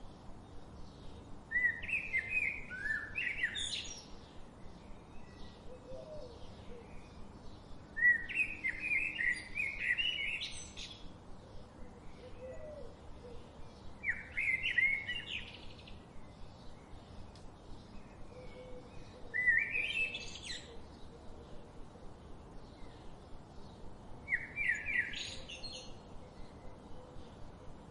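A songbird singing a short, rapid phrase of high notes about every five to six seconds, five times, each phrase climbing to its highest notes at the end. Fainter bird calls and a low steady hiss of forest ambience fill the gaps.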